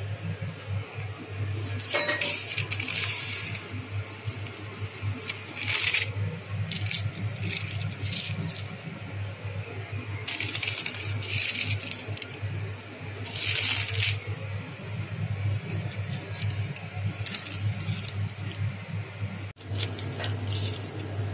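Dishes and other small hard objects clinking and clattering in short bursts every few seconds, over a steady low hum.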